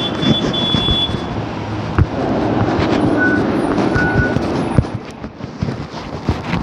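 Street traffic with cars passing; the rumble swells to its loudest in the middle and drops after about five seconds. Two short high beeps sound about three and four seconds in.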